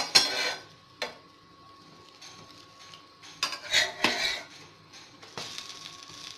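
A steel spatula scrapes and knocks against a nonstick frying pan as a folded egg omelette is pressed and turned. There is a scrape at the start, a sharp tap about a second in, and a longer scraping stretch around four seconds in.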